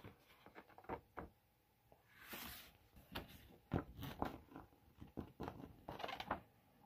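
A folded paper poster being unfolded and smoothed out by hand: faint, irregular paper crinkles and rustles, with a longer sliding rustle about two and a half seconds in.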